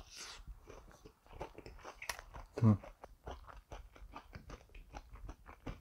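Close-miked crunching and chewing of cheese-fry pizza, with many small crackling bites throughout. A brief hum from the eater comes about halfway through and is the loudest moment.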